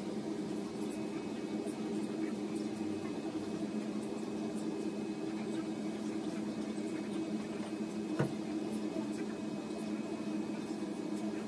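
A steady low hum, with one short click about eight seconds in.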